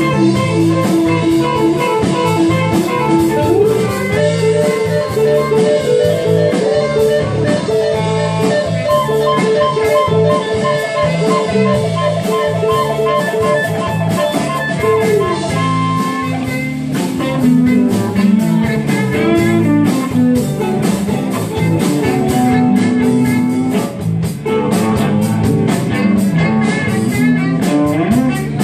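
Live blues-rock band playing, an electric guitar leading with held and bent notes over a repeating bass and drum rhythm, recorded on a phone.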